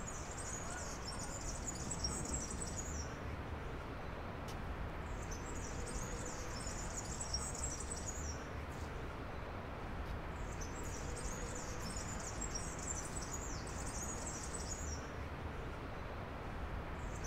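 Outdoor ambience: a high-pitched chirping trill repeats about every five seconds, each bout lasting two to three seconds, over a steady low background rumble.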